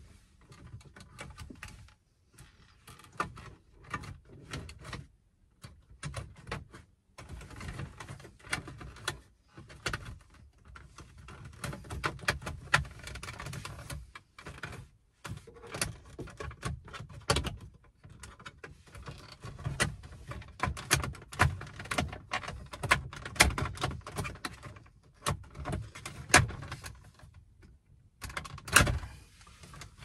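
Hands working on a VW Transporter T5's steering column and wheel hub: irregular clicks, knocks and rattles of plastic and metal parts being handled and fitted, with short scraping noises between them.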